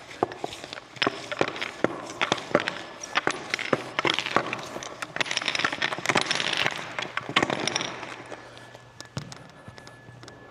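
Pickleball net being unrolled and handled: rustling of the net with many scattered clicks and knocks from its fittings. The rustling is thickest and loudest in the middle.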